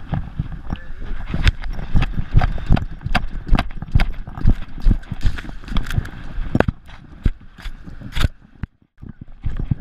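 A dog running on wet sand with an action camera strapped to its collar: uneven knocks and thuds, several a second, as the camera housing jolts with each stride. They break off briefly near the end, then start again.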